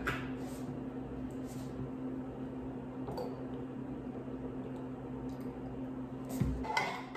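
Liquid creamer poured from a plastic bottle into a ceramic mug of coffee, with a soft squishing pour over a steady low hum. A soft knock about six and a half seconds in.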